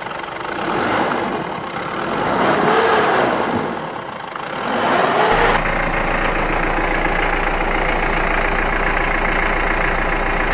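Vehicle engine sound, revving up and down a few times, then about halfway through switching abruptly to a steady idle.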